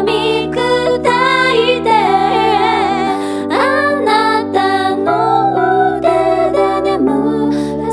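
A woman singing a slow Japanese ballad over sustained keyboard chords.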